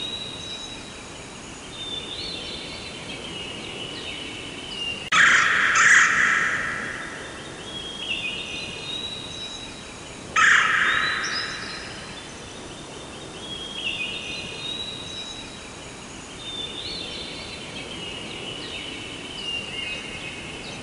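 Forest birdsong: a bird repeats the same high, rapid song phrase every few seconds over a steady background hiss. Two loud, harsh calls, about five and ten seconds in, are the loudest sounds.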